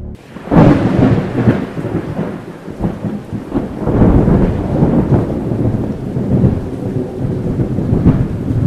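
Thunderstorm sound effect: thunder rumbling and cracking over falling rain, starting with a sudden loud clap about half a second in and swelling again several times.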